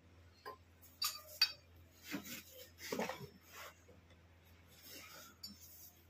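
Light metallic clinks and knocks from tools and a small gas torch canister being handled among metal parts, several separate taps spread through, over a faint steady hum.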